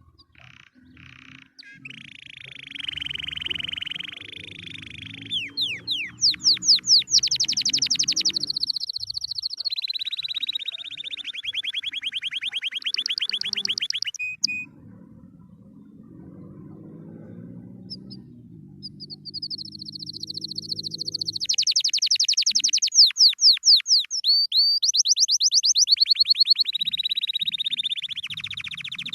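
Domestic canary singing: two long song phrases of rapid trills and rolls, each section switching pitch, with a pause of a few seconds in the middle.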